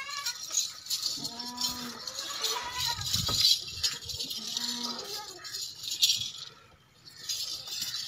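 Makhi Cheeni goats bleating: three short calls, the first with a wavering quaver, over a steady high hiss and rustle. There is a dull knock about three seconds in.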